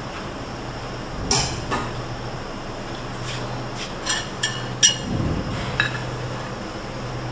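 Metal utensils and a frying pan clinking against plates and dishes during plating: a handful of sharp clinks spread out, the loudest about five seconds in, with a dull knock just after, over a steady low hum.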